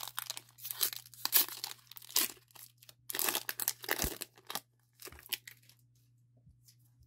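Foil wrapper of a Pokémon Shining Fates booster pack being torn open and crinkled as the cards are slid out: a run of crackling rustles that stops about five seconds in.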